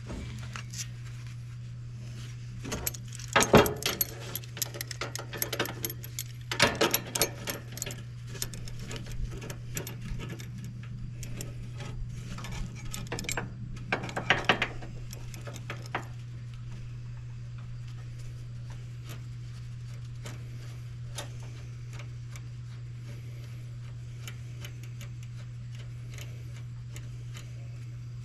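Steady low electrical hum, with irregular metallic clicks and clinks over the first half as welding gear is handled against the steel trailer frame; after that only the hum remains.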